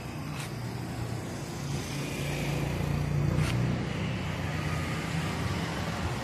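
A motor vehicle engine running with a steady low hum that gets louder toward the middle.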